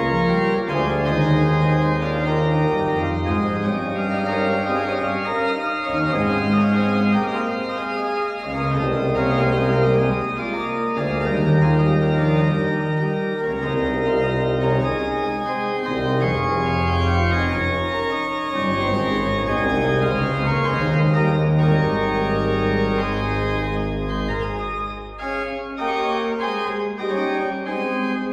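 Church pipe organ playing full sustained chords over a deep pedal bass. A low bass note is held for a few seconds toward the end.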